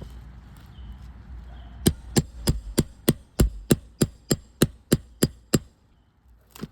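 Roofing hammer striking in a quick, even series of about thirteen sharp taps, roughly three a second, then one lighter knock near the end.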